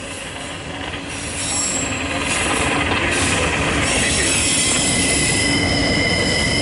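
CSX Q276 autorack freight train rolling past, a steady rumble that grows louder about a second and a half in. From about four seconds in, its steel wheels squeal on the rail in several high, steady tones.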